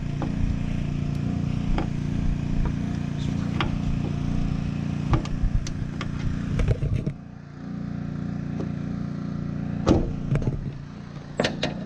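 Pressure washer running steadily, its drone dipping for a moment about seven seconds in. Over it come sharp clicks of a screwdriver prying at a lift support's end clip on its ball stud, with a louder snap about ten seconds in as the clip pops off.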